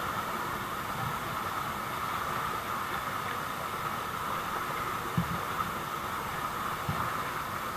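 Small waterfall pouring into a rock pool: a steady rushing hiss of falling water, with a few soft low thumps of water near the microphone about five and seven seconds in.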